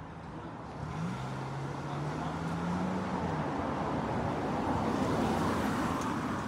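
A car driving past on the street: its engine hum and tyre noise build from about a second in, are loudest near the end, then begin to fade.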